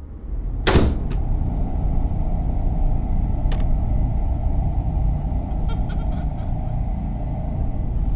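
A loud, steady low rumble sets in with one sharp hit under a second in and runs on unbroken, with a few faint clicks over it.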